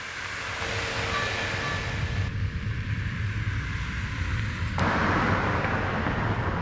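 Steady, dense rumbling noise that changes abruptly in tone twice, about two and five seconds in.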